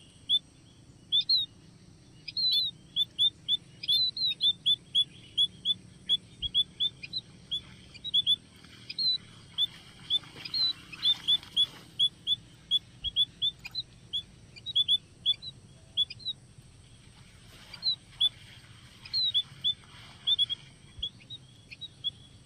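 Small birds chirping: many short, sharp high chirps, several a second, some with a quick upward flick, keeping on without a break.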